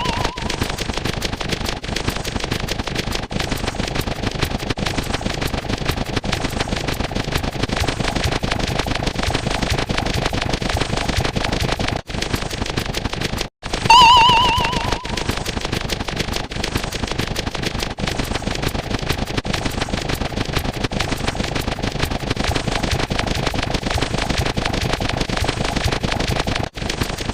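A dense, unbroken rattle of rapid sharp pops, like a string of firecrackers or a machine-gun sound effect, with a short warbling electronic beep about 14 seconds in.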